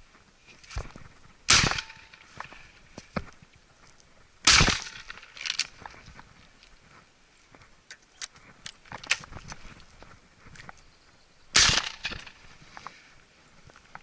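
Three sharp bangs, about a second and a half in, about four and a half seconds in, and near the end, among many lighter clicks and knocks.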